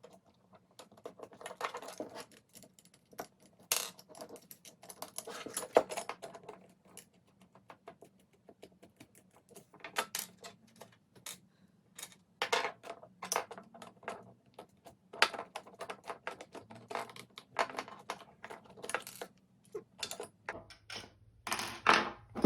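Irregular clicks, clinks and rattles of small metal parts and hand tools being handled as a beetleweight combat robot is unscrewed and its side panel taken off, in busy clusters with short pauses between.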